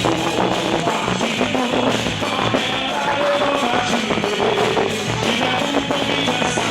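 Quadrilha junina dance music playing continuously.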